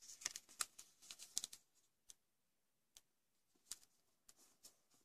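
A sheet of origami paper crinkling and crackling as fingers fold it into a valley fold and press the crease flat. There is a quick run of crinkles in the first second and a half, then scattered soft ones.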